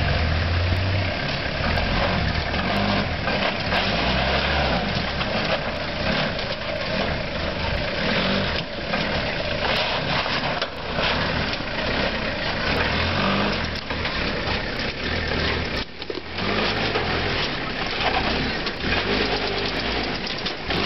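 Four-wheel-drive ute's engine running at low revs while it crawls up a rock step, with the revs rising and falling unevenly.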